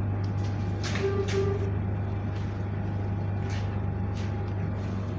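A steady low hum throughout, with a few faint knocks and rustles of handling about a second in and again later.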